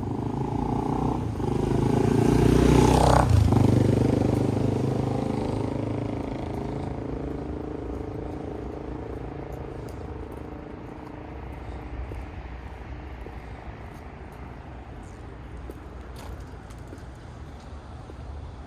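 A motor vehicle drives past close by, its engine loudest about three seconds in and then slowly fading away.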